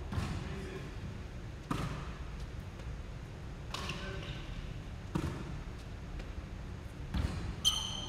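A basketball bouncing and thudding on a hardwood gym floor during a shooting drill: about five separate knocks, a second or two apart. A short high-pitched squeak near the end.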